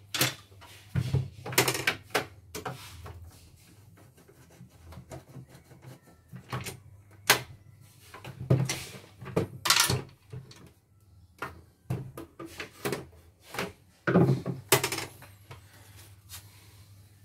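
Irregular knocks, clicks and rattles of hands and a screwdriver working on the plastic housing of an opened portable embroidery machine on a wooden workbench.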